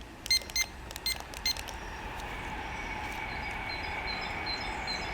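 A small toy quadcopter that is malfunctioning gives four short electronic beeps, then a steady whine that slowly grows louder. Its owner can't explain the noise.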